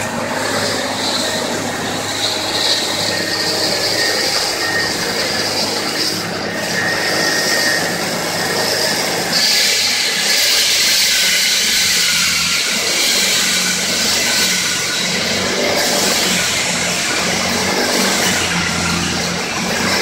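Gas-powered walk-behind road saw cutting pavement: a steady, loud, high grinding whine from the blade over the engine's running. About nine seconds in, the grinding grows louder and harsher.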